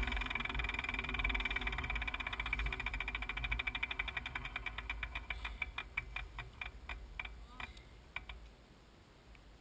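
Mountain bike's rear freehub ticking as the wheel spins down after a crash: rapid clicks that slow steadily and stop about eight and a half seconds in, over a low rumble that fades with them.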